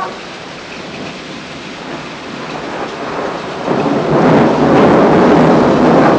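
Heavy rain falling steadily, with a peal of thunder rumbling in about three and a half seconds in and growing loud toward the end, following a nearby lightning flash.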